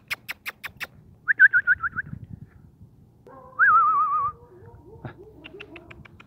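A person making a quick series of tongue clicks, then a short trilled whistle and a louder warbling whistle that wavers downward in pitch, followed by a few fainter clicks.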